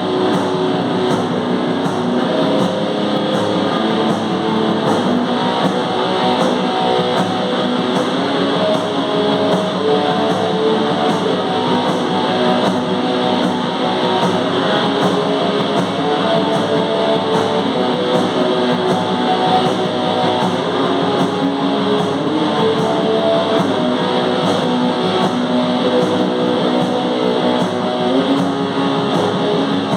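Live noise metal band playing loud, dense distorted electric guitar riffs over steady, evenly repeating drum strokes.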